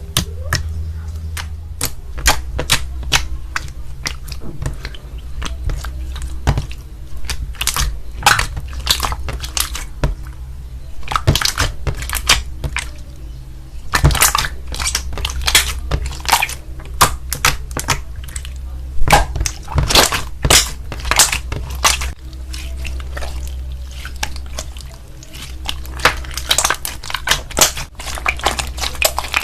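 Slime being squeezed, stretched and pressed by hand, making irregular sharp clicks and pops, over a steady low hum.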